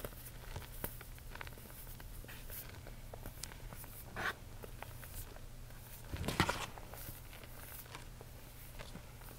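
Fingers working fine white powder: soft scratching and small crunching clicks, with two louder crunches, one a little after four seconds in and one past six seconds.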